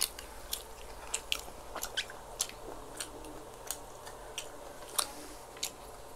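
Close-up chewing and wet mouth sounds of people eating mouthfuls of shawarma rice and siomai, a string of short sharp clicks at an irregular two or three a second.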